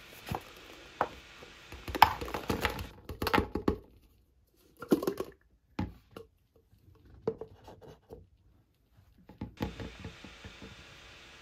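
Small objects being handled: irregular clicks, taps and rustles in short clusters, with near-silent gaps in the middle.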